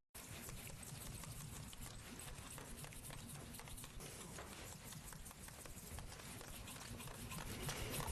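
Faint, rapid, light clicking and scratching of a watchmaker's bow-driven cutter working back and forth to finish a sink around a jewel or screw hole in a watch plate.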